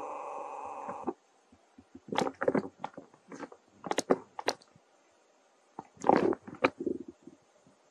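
Baby macaque biting and chewing a small green fruit: scattered short crunching and mouth sounds. A steady pitched sound in the first second stops abruptly.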